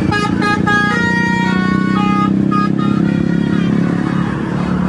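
Basuri telolet multi-tone air horn on a bus playing its melodic 'telolet' tune: three quick short toots, then a run of longer notes stepping between pitches, ending about three seconds in. A steady engine drone runs underneath.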